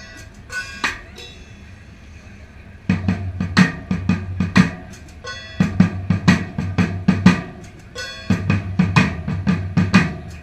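Music with drums: a few accented hits, a short lull, then a driving bass-heavy drum beat comes in about three seconds in and repeats in short phrases.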